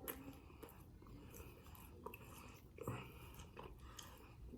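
Faint chewing of takeout food, with soft mouth clicks and a slightly louder bite or chew about three seconds in.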